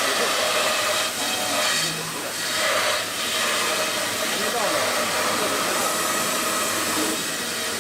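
CNC router spindle running steadily while it machines a styrofoam mould, giving an even, continuous noise.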